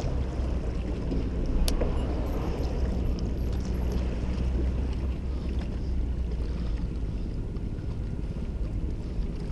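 Wind buffeting an action camera's microphone, a steady low rumble, with a single sharp click a little under two seconds in.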